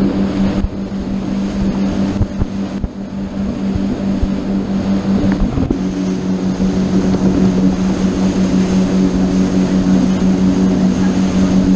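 Motorboat engine running steadily under way, a constant hum over rushing wind and water noise. The hum weakens for a few seconds, then returns strongly about six seconds in.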